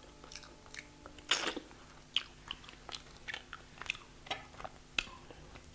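Close-miked chewing of a mouthful of chicken and butter naan: faint, irregular wet clicks and smacks, the loudest about a second and a half in.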